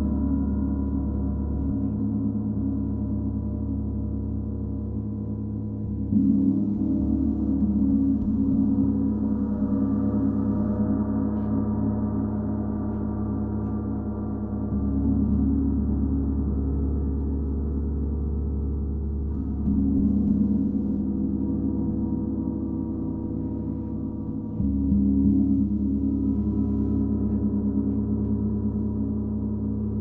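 32-inch Paiste Symphonic gong played softly and continuously, a dense sustained wash of overlapping ringing tones. It swells anew four times as the gong is struck again.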